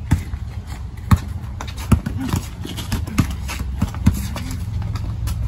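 Basketball dribbled on a concrete driveway: several sharp, unevenly spaced bounces, roughly one a second.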